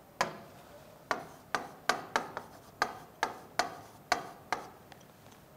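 Stylus tapping and scraping on an interactive display screen during handwriting: about a dozen short, sharp clicks at uneven intervals, dying away near the end.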